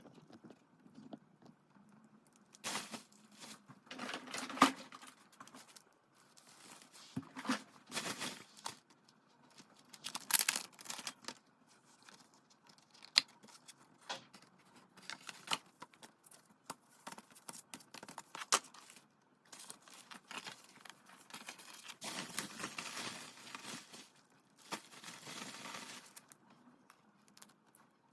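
Album packaging being opened by hand: irregular tearing and crinkling of plastic wrap and paper, with scattered clicks and rustles as the contents are handled.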